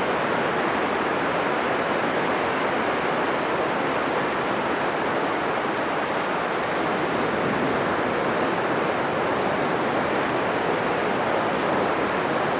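Atlantic surf breaking on a sandy beach: a steady, unbroken wash of wave noise with no single crash standing out.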